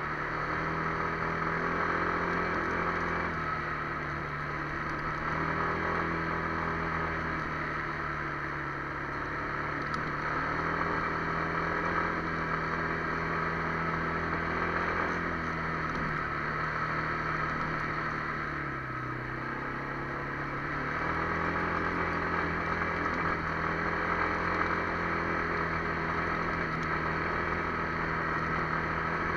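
Kymco MXU 300 ATV engine running steadily. Its engine speed sags and picks back up a few times, with the longest dip about two-thirds of the way through.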